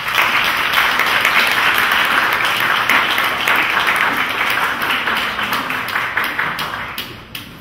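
Audience applauding. It starts suddenly and tapers off near the end.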